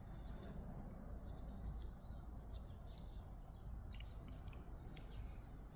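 Faint scattered clicks and ticks from a Leatherman Signal multitool being handled and its tools unfolded, over a steady low rumble.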